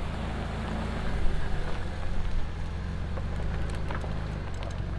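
Ford Ranger FX4 pickup's V6 engine idling steadily, a low even rumble, hitched to its cargo trailer and ready to pull out.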